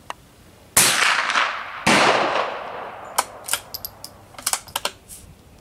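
Two gunshots about a second apart, each with a long ringing tail. They are followed by a quick run of short, sharp metallic clicks as the bolt of a CZ 452 .22 LR bolt-action rifle is worked between shots.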